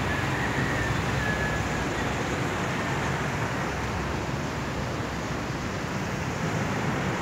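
Steady rushing noise of the swollen river flowing fast past the embankment wall at high water.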